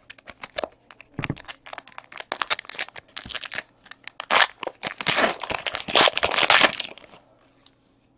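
A 2016 Panini Elite Extra Edition baseball card pack's foil wrapper being torn open and crinkled in the hands: a dense, irregular crackling and rustling that grows louder past the middle and stops about a second before the end.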